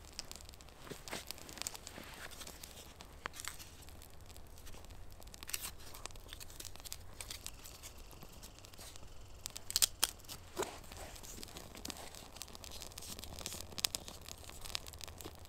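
Small campfire of birch bark and twigs crackling, with irregular sharp snaps and pops; the loudest cluster of pops comes about ten seconds in.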